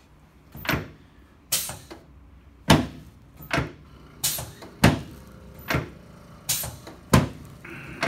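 A series of about nine sharp knocks, a little under a second apart, from the chiropractic treatment table as the chiropractor presses and rocks the side-lying patient's lower back and hip, working up to an SI-joint adjustment.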